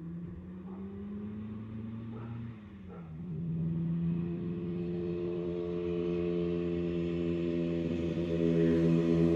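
1975 Yamaha RD350's two-stroke twin engine running as the bike is ridden. The engine note rises slightly, drops briefly about two and a half seconds in, then holds steady while growing steadily louder.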